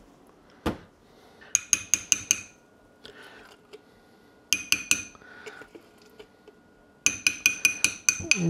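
Metal spoon tapping against a small ceramic ramekin, knocking mayonnaise off the spoon, in three quick bursts of several ringing taps each.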